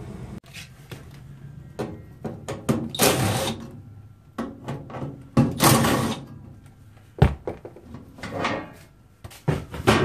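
Handling noise as a sheet-metal gas-furnace access panel is unlatched and pulled off: scattered clicks and knocks, a few short scraping rushes, and one sharp knock about seven seconds in.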